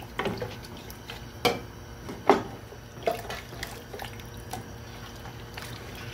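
Wooden spoon stirring short ribs in beef stock in a large metal pot: the liquid sloshes and splashes in short, uneven strokes, the loudest about two seconds in.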